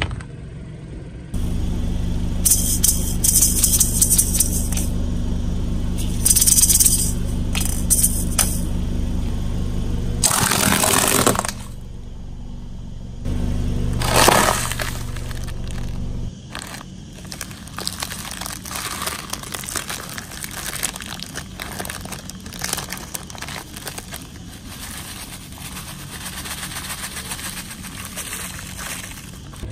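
A car tyre rolling over a net bag of plastic balls, which crack and pop in several loud bursts, then crushing a wrapped pack of crunchy wafer rolls. After that comes a long, dense rattling trickle as the crushed wafer crumbs are shaken out of the wrapper onto concrete.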